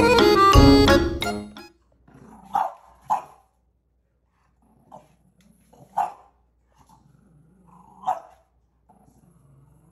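Background music cuts off after about a second and a half. Then a French bulldog puppy gives about five short, high barks a second or two apart, with low, quiet growling in between.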